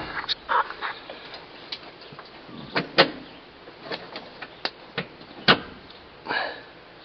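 Irregular clicks, knocks and short scrapes of hands working a choke cable and its retaining clip, with two sharper clicks, one about three seconds in and another later on.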